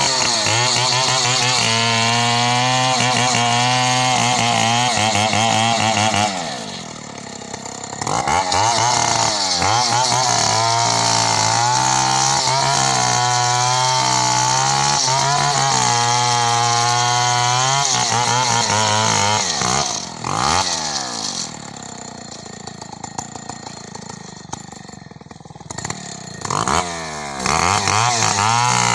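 Two-stroke chainsaw running at full throttle while cutting into a coconut palm trunk, its pitch wavering under load. Twice it drops back to idle: about six seconds in for a couple of seconds, and again for several seconds past the twenty-second mark, with a short blip of throttle before coming back to full speed near the end.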